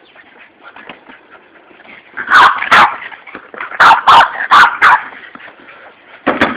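Boston terrier barking: about seven sharp barks in three clusters, two, then four, then a single bark near the end.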